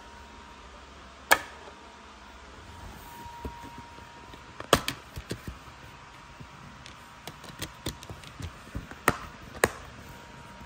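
Plastic DVD case and disc being handled: a series of sharp clicks and taps, one loud snap about a second in, then a cluster of clicks around five seconds in and more near the end.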